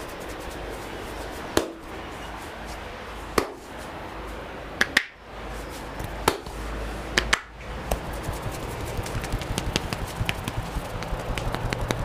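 Head massage by a barber's hands: a series of sharp snapping cracks a second or two apart as his fingers tug tufts of the man's hair (hair cracking). About eight seconds in, this gives way to a fast run of light taps on the head.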